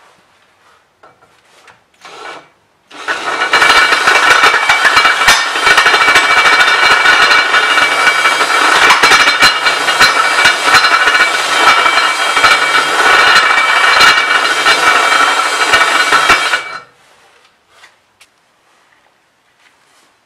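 Cordless drill running, cutting into the cast-aluminium intake manifold to enlarge the oil fill tube hole to an interference fit: a steady motor whine under rapid clicking. It starts about three seconds in and stops a few seconds before the end.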